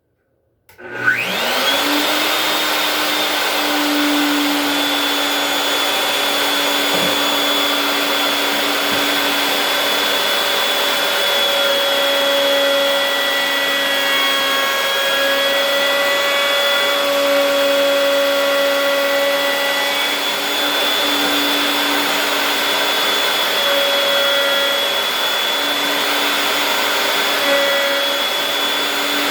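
Table-mounted wood router switched on about a second in, spinning up with a rising whine and then running steadily at full speed with a high-pitched whine.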